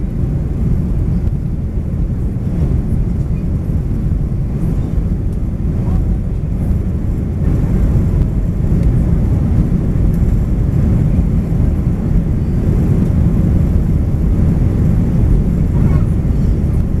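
Airbus A320 cabin noise in the climb after takeoff: the steady low rumble of the engines and rushing airflow, heard from inside the cabin.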